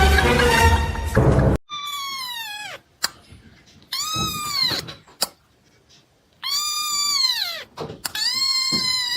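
A cat meowing loudly four times in long, drawn-out calls, each about a second long, holding its pitch and then dropping at the end. Background music cuts off just before the first call.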